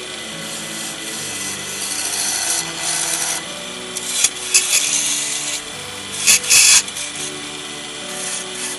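A tool working wood on a woodturning lathe, a steady rough scraping hiss with a few louder bursts a little past halfway. Low background music plays underneath.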